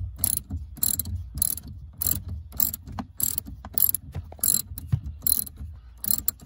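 Hand ratchet with a triple-square socket backing out the M10 bolt at the steering shaft's upper joint. The pawl clicks in a short run on each back-swing, about two swings a second.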